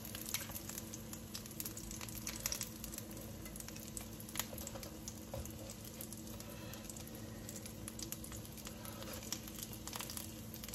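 Hot oil sizzling faintly in a frying pan of shallow-fried baby aubergines, with scattered small pops and crackles, while the aubergines are lifted out onto a plate.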